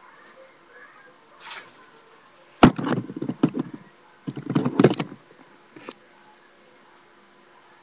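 A sharp knock, then two bouts of rattling and clattering about a second long each, and a last faint knock, with room quiet around them.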